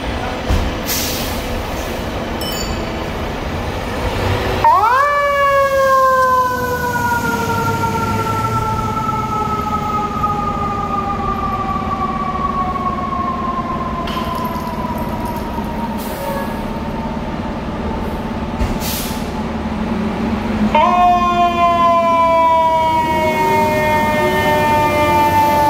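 FDNY fire truck's mechanical siren winding up sharply about five seconds in and slowly coasting down in pitch, then winding up again near the end and coasting down, over a diesel engine running.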